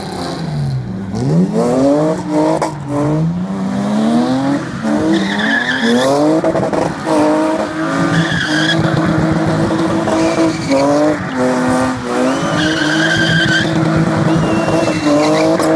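Two BMW E36 drift cars, one a 325i, spinning donuts: the engines rev up and down again and again, with the tyres squealing in bursts and scrubbing as they spin.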